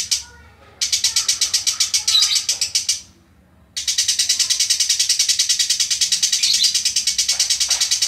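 Blue masked lovebird singing a long, fast, even rattle of high chips in two bouts, with a short break about three seconds in. This is its 'isian', the tengkek buto call it has learned to imitate.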